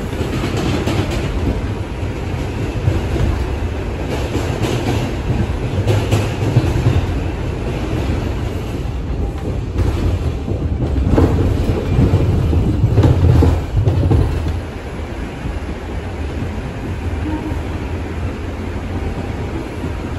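R142 subway car heard from inside while running along the track: a steady rumble of wheels on rail with scattered clicks over the rail joints. It grows louder for a few seconds just past the middle.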